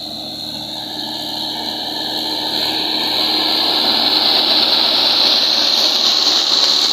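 Mahindra 475 DI tractor's four-cylinder diesel engine running under load while towing a stuck Swaraj 843 XM tractor out through sand, growing steadily louder as it approaches and passes close by.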